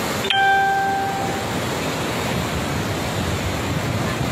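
A fast, swollen flooded river rushing steadily, its noise filling the sound. A short bell-like ding rings out about a third of a second in and fades within about a second.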